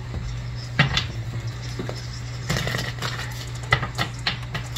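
A deck of oracle cards being shuffled and handled, a scattering of light clicks and taps over a steady low hum.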